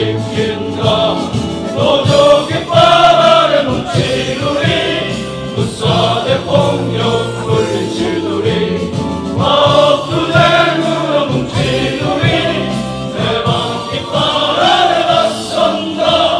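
Music: a song sung by a group of voices over instrumental backing.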